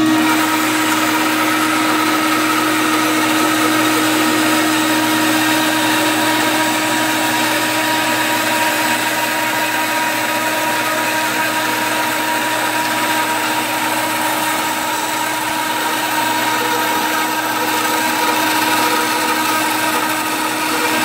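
Bandsaw running steadily while its blade rips through a block of oak: a constant motor hum under the blade's cutting noise.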